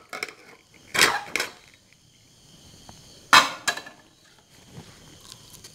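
Pressure cooker lid being unlocked and lifted out of a Hawkins Contura cooker, giving a few sharp metal knocks and scrapes; the loudest knock comes a little past three seconds in as the lid is set down.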